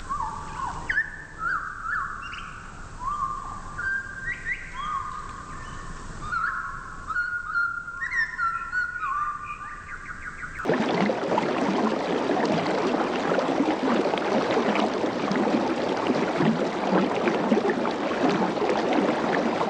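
A bird's whistled notes, each a short upward slide onto a held tone, repeated over and over. About halfway through it cuts off abruptly and a louder, steady rushing noise takes over.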